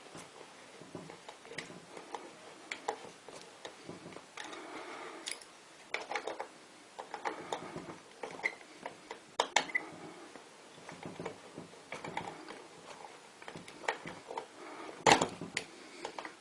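Irregular small clicks, taps and brief scrapes of small hard parts being handled, with one sharper knock near the end.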